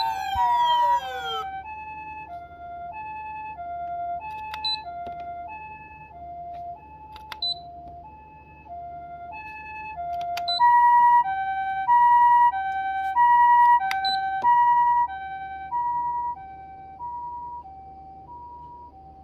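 Osaka Siren MK-D1 siren amplifier sounding the Japanese ambulance two-tone hi-lo siren: two pitches alternate, each held a little over half a second. It opens with the tail of a falling swept tone. The siren grows quieter, swells loud about ten seconds in, then fades again.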